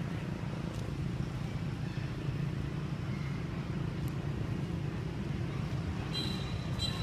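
A steady low motor rumble, and near the end a brief high-pitched squeal that fits a newborn long-tailed macaque crying.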